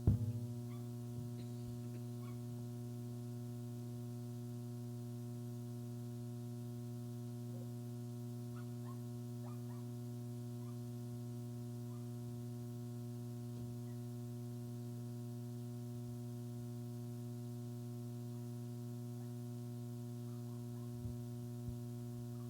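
Steady low electrical mains hum from the sound system's open microphone, with a single thump right at the start.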